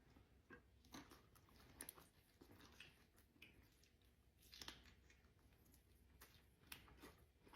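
Faint chewing and mouth sounds of a person eating, with irregular soft wet clicks and smacks.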